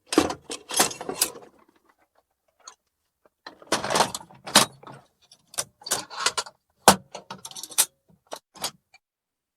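Metal tools and hardware (screws, bits, screwdrivers, Allen keys) clinking and rattling as a hand rummages through a toolbox, in bursts of clatter with a pause of about two seconds early on and one sharp clack near the end.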